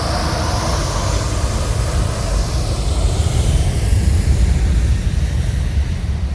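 Jet airliner passing low overhead on its landing approach: a deep engine rumble with a high whine above it.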